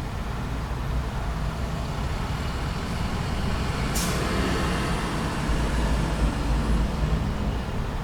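Traffic at a busy intersection: a steady low rumble of heavy vehicle engines that swells in the second half, with one brief sharp hiss about four seconds in.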